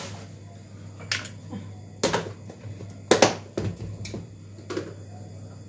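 A few sharp clicks and knocks from plastic kitchen containers being handled and set down on a countertop, the loudest about three seconds in, over a low steady hum.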